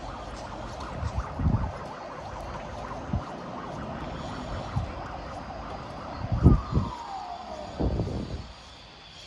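Outdoor street ambience with a steady background hiss, a few low thumps, and a single tone that falls in pitch over about a second, two-thirds of the way through.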